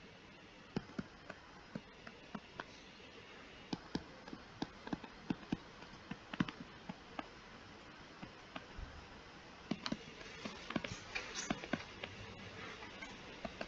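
Stylus tapping and clicking on a tablet screen during handwriting: a string of light, irregular taps, sometimes several in quick succession, over a faint steady hiss.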